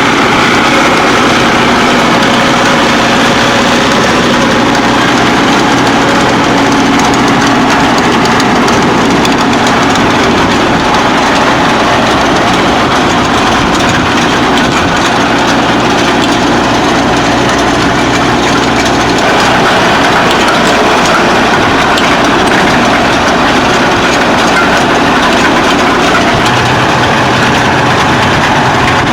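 A tractor running steadily with a Hesston 5540 round baler's machinery, a continuous engine hum under a broad mechanical noise.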